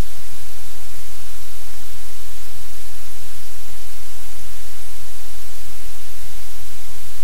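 Loud, steady hiss of static, with a low hum beneath it.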